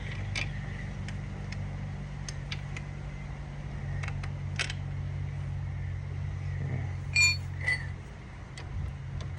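Small metal parts of a motorcycle gear shift linkage being handled and fitted: scattered light clicks, and about seven seconds in a sharper metallic clink that rings briefly, followed by a second, softer one. A steady low hum runs underneath.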